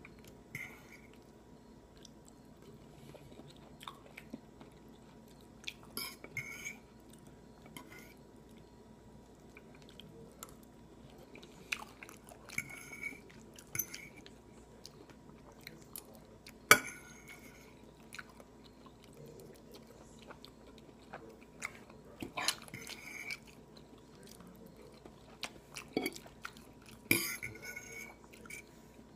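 A cockatiel pecking at and nibbling rice: scattered sharp beak clicks and short bursts of crunching every second or two, with one louder sharp click about halfway through.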